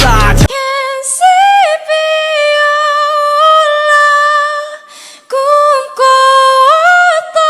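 A high solo singing voice holding long, sustained notes a cappella, stepping between pitches with a breath between phrases. Full pop backing music cuts off about half a second in.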